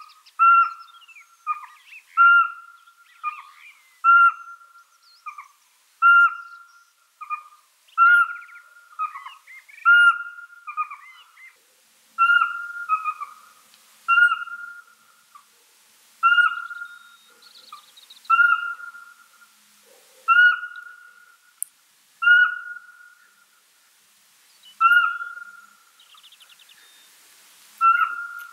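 Pygmy owl calling a long series of short whistled toots on one pitch. They come about one a second at first and slow to about one every two seconds in the second half.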